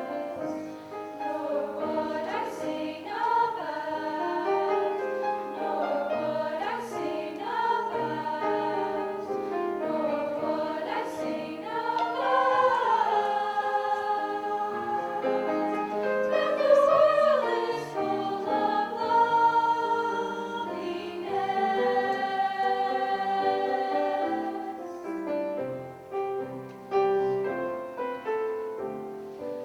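Choir singing: a mix of voices holding chords and moving together from note to note.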